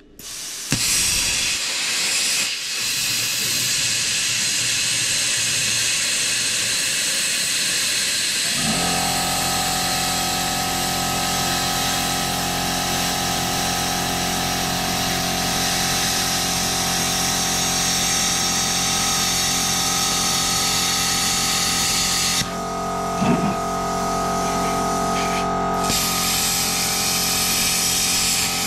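Plasma cutter hissing as it cuts into the steel casing of a fridge compressor. A steady hum with several pitches joins about nine seconds in. The high hiss drops away for a few seconds about three-quarters of the way through, then resumes.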